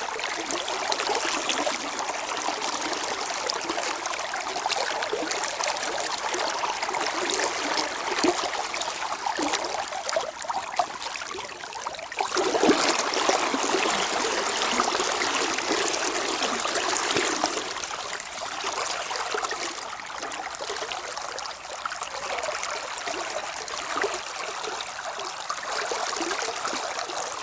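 River water flowing and rippling steadily in the current, a little louder for several seconds about halfway through.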